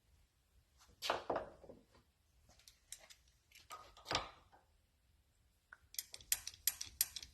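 Metal scraping and clicking as the piston of a rusted, heat-loosened brake wheel cylinder is worked out by hand. There are two louder scrapes, about a second in and about four seconds in, then a quick run of sharp clicks near the end.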